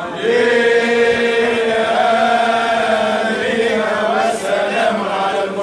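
Isawiya Sufi brotherhood men chanting together in unison, drawing out long held notes that shift and waver in pitch a little past halfway through.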